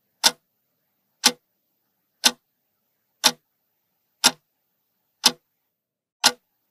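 Ticking-clock sound effect counting down a timer: seven sharp ticks, one each second, with silence between.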